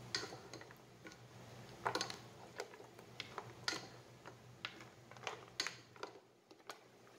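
Spatula stirring chunks of boiled beef in a pot, giving irregular light clicks and knocks as it strikes the pot, over a low steady hum.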